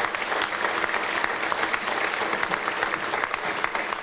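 Audience applauding steadily: a dense clatter of many hand claps.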